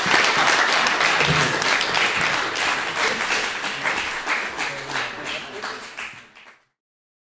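Audience applauding, with some voices among the clapping; the applause fades out and stops about six and a half seconds in.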